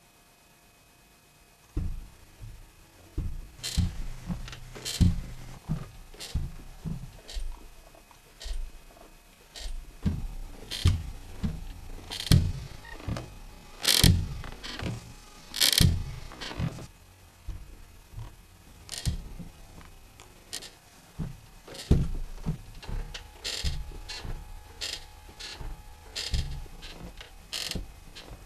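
Wooden rocking chair creaking and knocking as it rocks: irregular sharp clicks and creaks, a few each second, with low thuds, starting about two seconds in.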